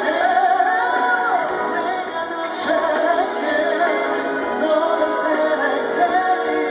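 A male pop singer singing a ballad live into a handheld microphone, his voice gliding and held over band accompaniment.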